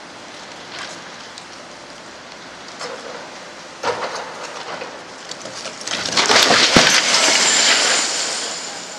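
Building demolition: debris cracking and crumbling, with a loud crash and rumble of falling material about six seconds in that fades away over the next two seconds.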